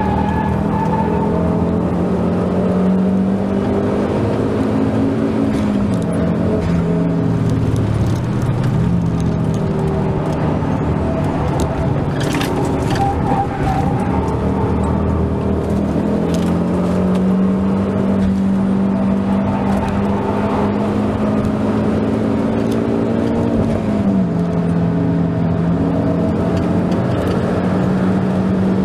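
Ford Focus ST225's turbocharged 2.5-litre five-cylinder engine heard from inside the cabin at track speed, with tyre and wind noise. The engine note holds steady for long stretches, steps down and climbs back twice (about a fifth of the way in and again about four-fifths in), with a few brief clicks near the middle.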